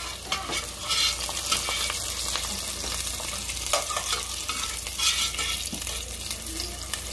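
Onion slices and garlic cloves sizzling in hot oil in a stainless steel pot, a steady hiss with frequent small crackles and a few louder pops. The onion has gone translucent, sautéed nearly done.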